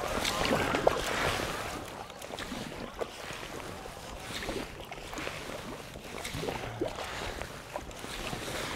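Kayak paddle strokes and water splashing and lapping on a river, with light wind on the microphone and scattered small splashes.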